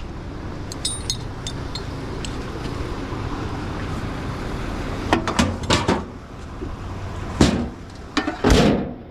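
Gear being stowed in a tow truck's storage box: light clinks, then a run of metal knocks and one sharp bang a little past halfway, ending in a longer clatter. A steady low rumble sits underneath.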